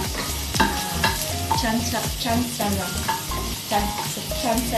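Wooden spatula stirring in a stainless steel pan, knocking and scraping against the metal about twice a second, each knock ringing briefly, over the sizzle of frying.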